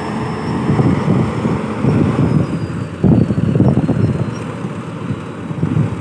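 Rice combine harvester's engine running loudly at close range: a heavy, uneven rumble that surges about three seconds in.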